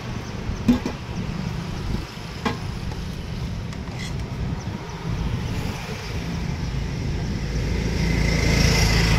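A steady low rumble that swells near the end, with a few sharp clinks of a serving spoon against steel serving pots.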